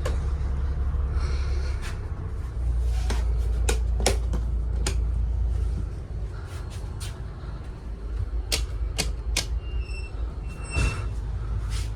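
Light switches clicking several times, a run of sharp clicks and knocks, over a low steady rumble that drops away about halfway through. Two short electronic beeps near the end.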